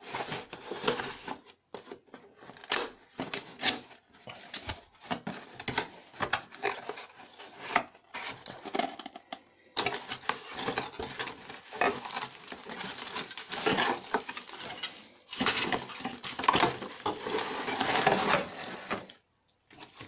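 Cardboard box flaps and plastic packaging being handled and rustled: irregular crackling, scraping and tapping, with brief pauses.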